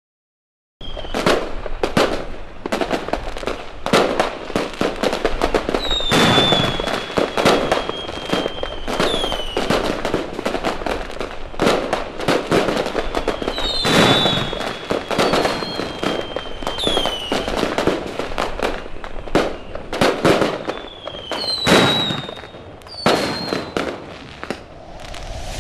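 Dense fireworks display: a rapid, continuous run of bangs and crackling from many shells, starting about a second in after a brief gap. Several high whistles slide down in pitch through it.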